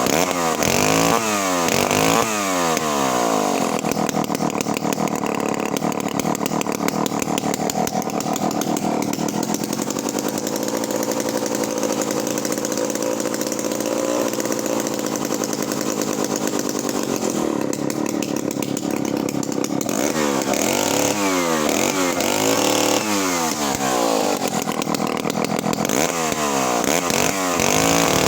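1958 Solo Rex chainsaw's two-stroke engine running, revved up and down several times in the first few seconds, then running steadily for a long stretch, then blipped up and down repeatedly again over the last eight seconds or so.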